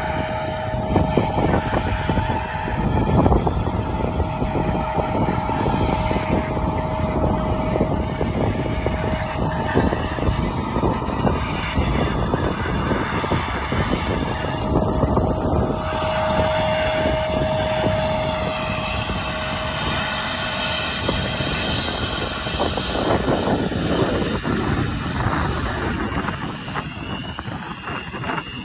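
Jet airliner engines running, a steady whine over a dense rumble. Near the end a higher whine rises in pitch as the United Airlines jet draws close.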